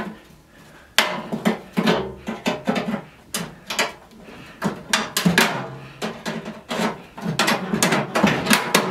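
Needle-nose pliers working the tabs of a cut-out cover in a microwave's sheet-metal bottom panel, twisted until they break: a sharp metallic click about a second in, then a run of irregular clicks, scrapes and rattles of metal on metal.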